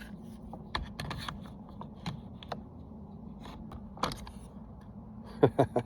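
Light clicks and knocks of a chainsaw's bar and chain being handled and fitted onto the saw, with a quick run of sharper clicks near the end.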